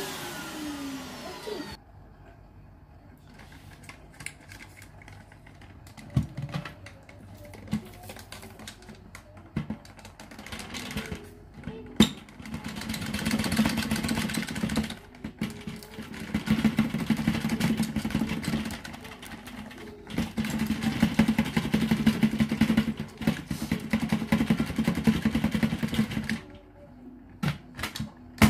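Dyson cordless vacuum switched off, its motor winding down in a falling whine over the first couple of seconds. Then, after a few knocks, the clear plastic dust bin is shaken and tapped in several long bursts, dirt and debris rattling inside it and pouring out onto the carpet; the last burst cuts off suddenly near the end.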